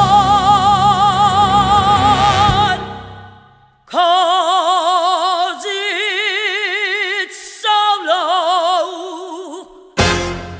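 Female vocalist holding a long final note with wide vibrato over a big band, which fades away. After a short pause, a solo voice with little accompaniment sings a few long, held notes with heavy vibrato. A short loud burst of noise comes near the end.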